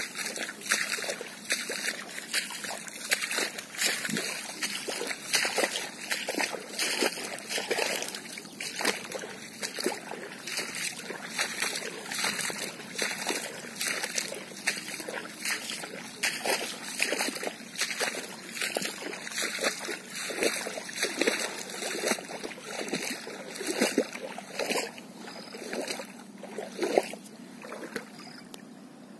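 Footsteps splashing through shallow muddy floodwater, a step about every half second, dying away near the end.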